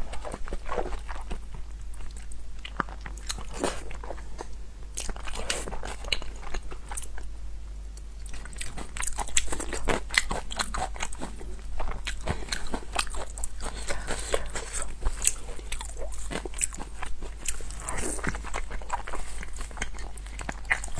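Close-miked crunchy chewing and biting of food: an uneven run of crisp crunches and bites.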